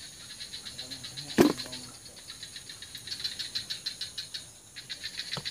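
Insects calling in a rapid, even pulse, about nine pulses a second. A sharp knock about one and a half seconds in is the loudest sound, and a fainter click comes near the end.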